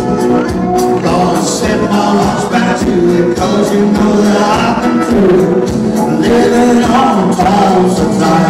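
Live music played through a PA system: a man singing into a microphone over an instrumental accompaniment with a steady beat.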